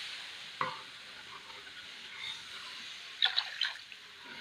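Steel ladle stirring besan-and-buttermilk kadhi batter in a wok-like kadhai: liquid swishing over a fading sizzle, with the ladle knocking against the pan about half a second in and clinking a few times near the end.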